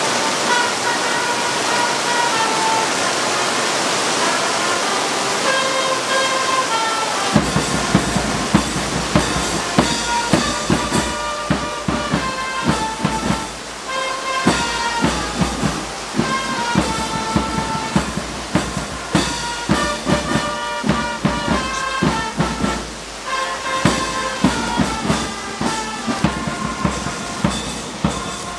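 Heavy rain pouring over a marching band playing. A melody carries alone at first, then drums come in about seven seconds in and keep striking through the rest of the music.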